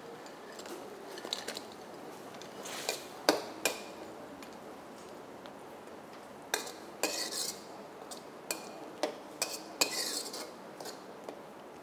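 Metal ladle clinking and scraping against a kadai as fried pakoda pieces are added to the curry and stirred in. The clinks come irregularly, a few in the first four seconds, then more often in the second half.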